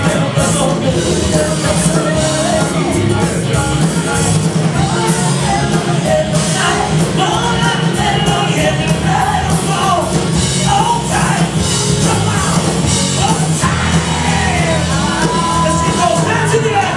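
Live rock band playing loud: drums, electric guitars and bass, with a singer's voice over them.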